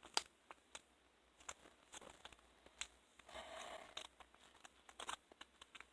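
Faint crinkles and sharp clicks of a homemade paper squishy being handled and squeezed, with a short rustle a little over three seconds in.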